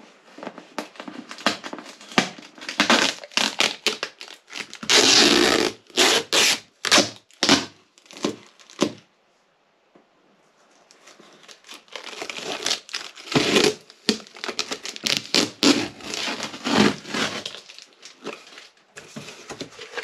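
A box and its packaging being opened by hand: irregular crinkling, tearing and rustling, loudest about five seconds in, with a second of quiet about halfway.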